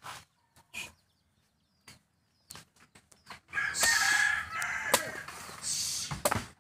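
Machete chopping into the husk of a young green coconut (buko): a series of sharp chops about a second apart. A rooster crows loudly through the second half.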